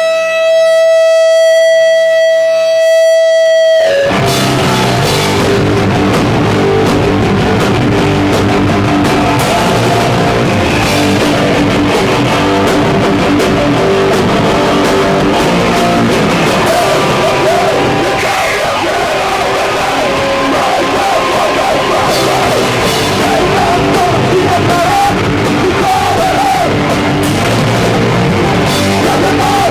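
Hardcore band playing live: a single electric guitar tone held steady for about four seconds, then the full band crashes in loud and keeps going, later joined by vocals.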